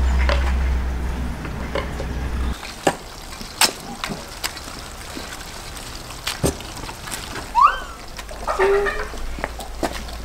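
Live crayfish being handled in an enamel basin and cardboard box, their shells clicking and rattling against each other and the basin in a run of separate sharp clicks. A low rumble stops suddenly a couple of seconds in, and a short high rising squeak comes about three-quarters through.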